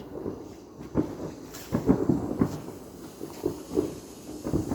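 Fireworks going off: a run of irregular dull bangs, several in quick succession, over a low rumble.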